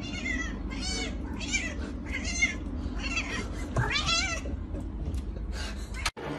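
A domestic cat meowing over and over: seven or eight short, high meows, the loudest about four seconds in.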